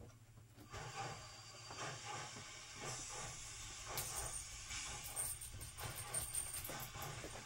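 Norfolk & Western Class A 2-6-6-4 articulated steam locomotive No. 1218 running past, its exhaust chuffing in a quick, rough rhythm under a steady hiss.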